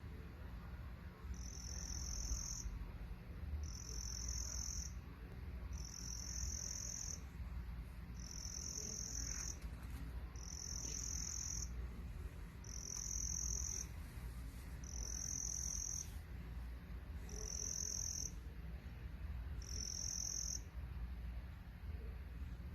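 Crickets chirping: high-pitched trills about a second long, repeating evenly about every two seconds, over a steady low rumble.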